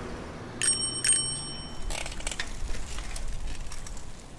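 A bicycle bell rung twice, about half a second apart, its high metallic ring fading within a second. It is followed by a low, steady rumble with faint scattered clicks.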